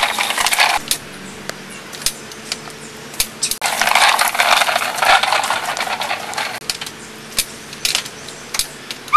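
Plastic toy lawnmower rattling and clicking as it is pushed over grass and dirt. There are two spells of dense clatter, one at the start and a longer one from about three and a half seconds in, with scattered clicks between them.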